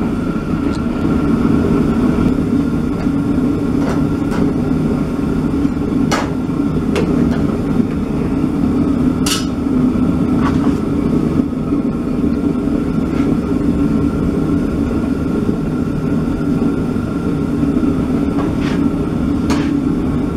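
Steady roar of a blacksmith's forge running. A few sharp metal clanks come over it as a red-hot steel bar clamped in a vise is twisted with a wrench.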